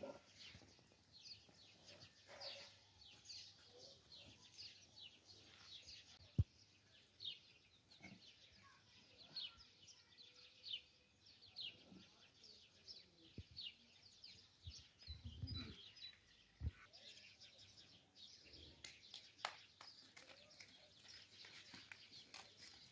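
Birds chirping faintly: many short, high, falling chirps keep coming throughout. A single sharp knock sounds about six seconds in, and a low thump comes around the middle.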